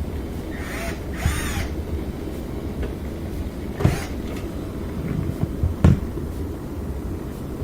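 Frigidaire Gallery dishwasher running with a steady low hum of its circulation pump pushing the water around, now that the drain and filter are clean. About a second in there is a short squeaky creak, and two sharp knocks come around four and six seconds in.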